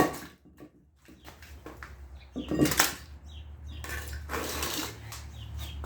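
Handling noises of the destruction setup: a single sharp knock about two and a half seconds in and a stretch of rustling clatter near the end, over a steady low hum.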